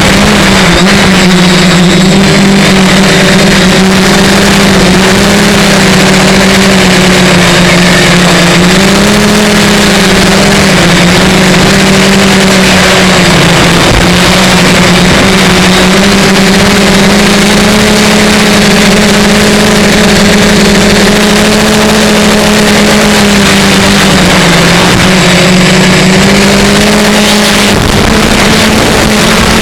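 Radio-controlled X-copter's motors and propellers running with a steady, loud hum that wavers slightly in pitch as the throttle shifts, over heavy wind noise from flying in strong wind.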